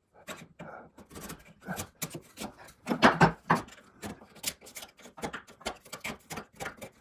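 Hand chisel paring and scraping waste from the sockets of a joint in softwood: a run of short, irregular scrapes and clicks, loudest about three seconds in. This is the cleanup of the coping-saw waste back to the layout line.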